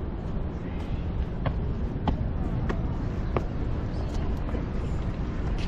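Outdoor city ambience: a steady low rumble of traffic, with a run of four sharp clicks a little over half a second apart in the first half.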